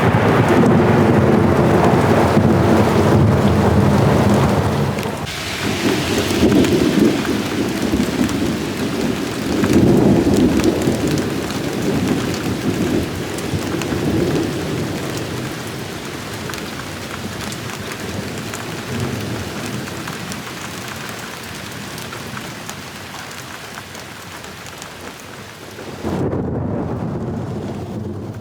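Heavy rain pouring with rolling thunder: a long, loud rumble for the first few seconds, then several weaker rumbles that die away under the steady rain.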